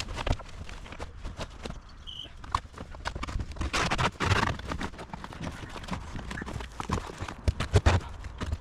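Irregular knocks, clacks and rustling as a pop-up camper's canvas is worked off its frame, with a louder scraping, rustling burst about four seconds in.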